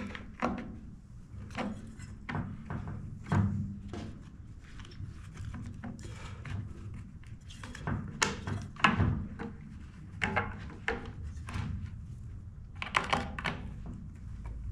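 Irregular knocks and clicks of a chainsaw's plastic handle and housing and a T-handle screwdriver being handled while the saw is put back together, with a quick run of several clicks near the end.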